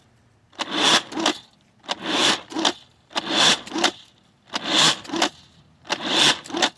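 Adventure Force Spinshot disc blaster being pumped and fired over and over, about five cycles roughly 1.3 seconds apart. Each cycle is a scraping plastic pump stroke with a shorter second part to it.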